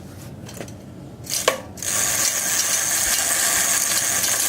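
Bicycle hub's freewheel ratchet buzzing fast and steadily as the wheel spins, its pawls clicking, really loud, starting about two seconds in after a knock.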